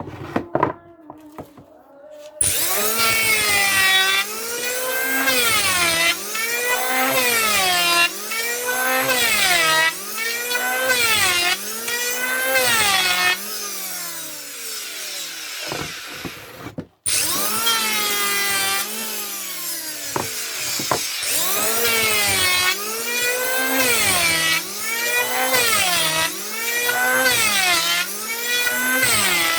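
Electric wood planer cutting wood, its motor whine dipping in pitch and recovering over and over, about one cut every second and a half, as the blades take load. It comes in loud a couple of seconds in, breaks off abruptly about halfway and starts again straight away.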